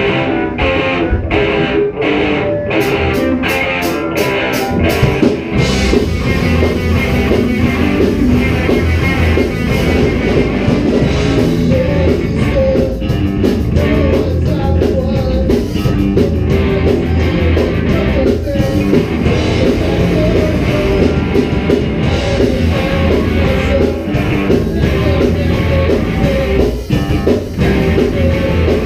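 Rock band playing live: electric guitars, bass guitar and a drum kit. It opens with a run of evenly spaced accented hits that come faster, and the full band settles into a steady groove about five seconds in.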